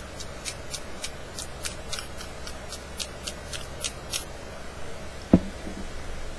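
Electronic grill lighter's high-voltage spark generator arcing in a run of sharp, high-pitched snapping clicks, about four a second, that stop about four seconds in. A single louder click follows a little past five seconds in.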